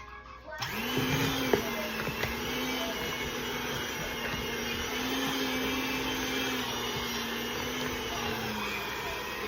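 Electric mixer running steadily, beating cookie dough; it starts up about half a second in, its motor hum wavering slightly in pitch as it works through the dough.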